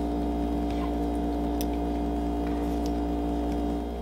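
A few faint clicks of a metal fork pressing the dough edge of an empanada against a wooden cutting board, over a steady low hum.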